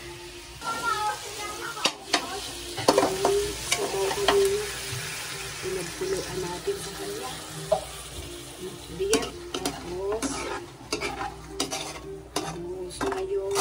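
Boiled chicken pieces and onion sizzling in a wok over a gas burner, stirred with a spatula that clicks and scrapes against the pan again and again.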